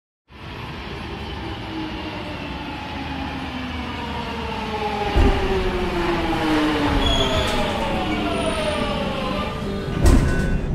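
Subway train running, its motor whine falling slowly in pitch as it slows, over a steady rumble. Two loud thumps come about five seconds apart.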